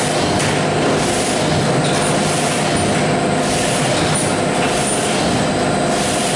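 Machinery running with a steady, loud hum and hiss that holds constant throughout.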